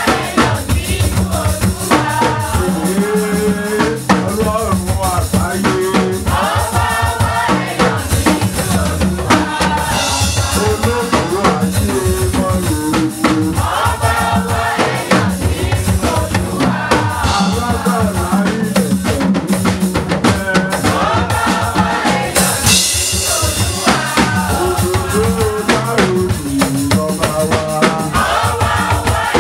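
Voices singing a Yoruba praise song over a drum kit keeping a steady beat.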